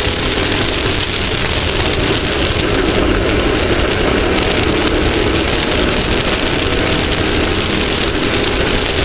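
Off-road race vehicle's engine running steadily at speed, under a constant rush of wind and terrain noise on a front-mounted onboard camera.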